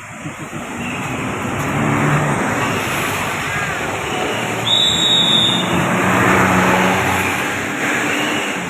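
Tour bus driving past, its engine and tyre noise swelling and staying loud through the middle of the pass. A short high-pitched whistle tone sounds about five seconds in.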